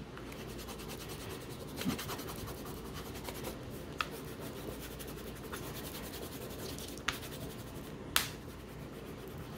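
Broken wax crayon rubbed back and forth across paper on a clipboard: a steady scratchy rubbing, broken by a few sharp clicks, the loudest about 8 seconds in.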